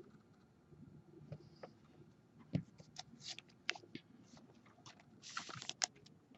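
Faint scattered clicks and crisp rustles of baseball cards being handled and shuffled through, with a brief cluster of crinkling about five seconds in.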